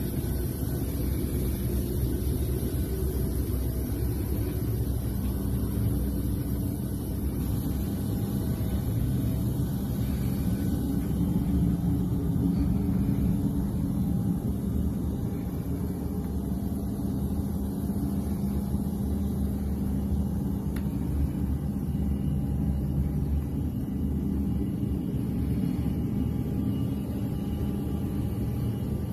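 Steady low rumble of cabin noise inside a Boeing 737 Business Jet, with faint hums that come and go above it.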